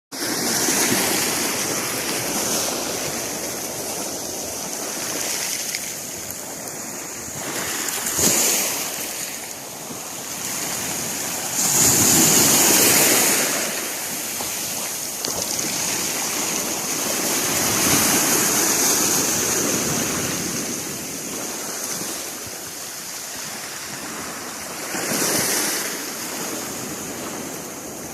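Sea waves washing onto the shore, the rush of water swelling and ebbing every few seconds. The loudest surge comes about twelve seconds in.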